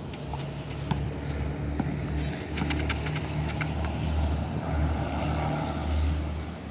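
A steady low rumble with a swell in the second half. Scattered sharp knocks of a basketball bouncing on an asphalt court sound over it.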